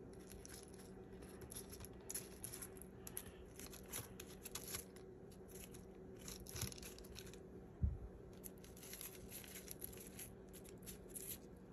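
Faint, scattered crinkling rustles of parchment paper and seasoned chicken of the woods mushroom pieces being flipped over by hand, with a soft thump about eight seconds in, over a faint steady low hum.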